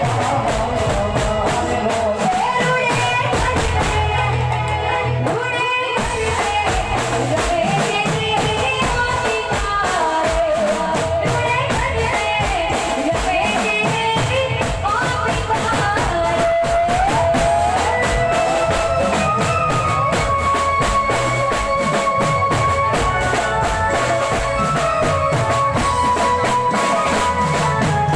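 Live folk music played loud through a sound system: a steady, fast beat of drums and tambourine under a wavering melody with a singing voice.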